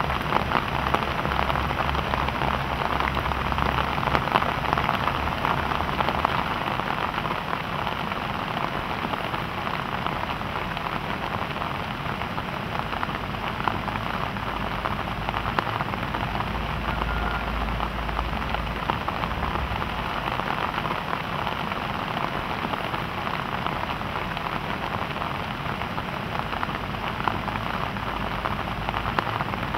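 Steady rain falling on large Alocasia leaves and the surrounding foliage: an even, dense hiss made of many small drop hits.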